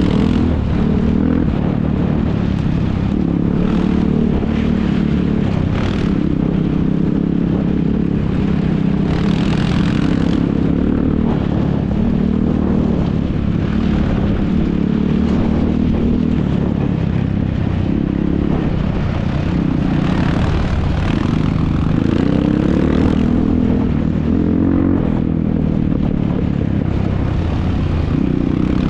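ATV engines running hard, their pitch rising and falling as they rev up and back off.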